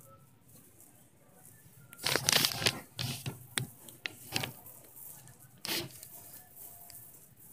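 Plastic bags and packaging crinkling and rustling in irregular bursts, loudest about two seconds in, followed by a few short sharp crackles.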